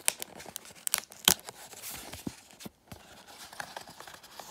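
Small cardboard box's glued flap being pried open, the glue seal peeling and the card tearing in a few sharp crackles and clicks, the loudest a little over a second in.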